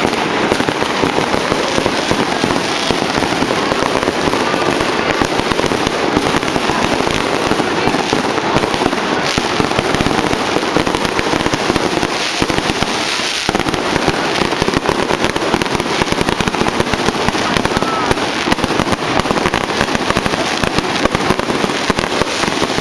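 Many fireworks and firecrackers going off at once all around, a dense, unbroken barrage of overlapping pops, bangs and crackles.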